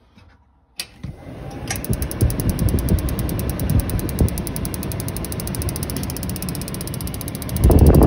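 DuoTherm RV forced-air furnace starting up: its blower motor spins up about a second in, and soon after the spark igniter starts ticking rapidly and evenly, running with the gas off to test the spark. The electrode gap is too wide, so the spark is arcing down into the burner. A louder bump comes near the end.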